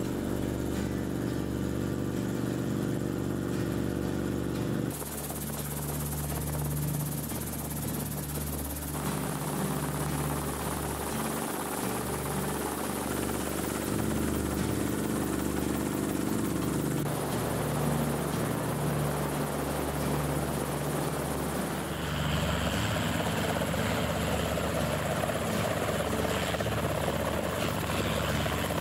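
Enstrom helicopter in flight: the steady drone of its engine and the throb of its rotor. Heard at first from inside the cockpit and, near the end, from outside. The sound changes abruptly several times as different shots are cut together.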